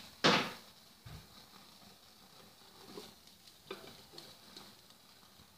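Tandoori chicken pieces sizzling faintly on a wire-mesh grill rack over a gas flame. A brief loud hiss comes just after the start, then a dull thump about a second in and a few light metallic ticks as the rack is handled.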